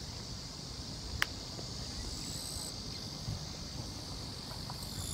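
Insects chirring steadily in a high, even drone, with a second, higher note that comes and goes. A low rumble runs underneath, and a single sharp click is heard about a second in.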